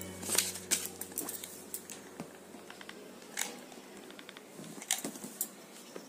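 Hands handling paper and a paper-covered box, with scattered light taps and paper rustles. A low steady hum fades out in the first two seconds.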